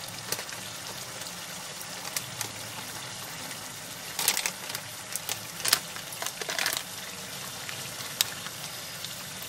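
Tomato-and-spice masala bubbling and sizzling in oil in a kadhai on low heat: a steady hiss with scattered spluttering pops, several of them in the middle and one near the end.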